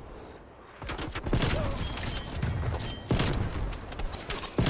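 Video-game gunfire: a lull of under a second, then repeated shots and short automatic bursts with heavy low-end impacts.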